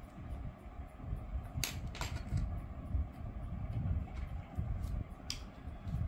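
Bottom cover of an ASUS VivoBook X513EA laptop being pried off with a spatula, its plastic retaining clips clicking loose over low rubbing and handling noise. There are two sharp clicks just before two seconds in and another a little after five seconds.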